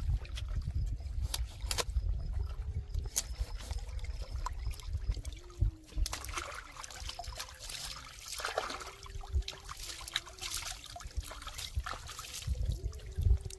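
Water trickling and splashing, over a steady low rumble, with scattered clicks and a busier stretch of splashing in the second half.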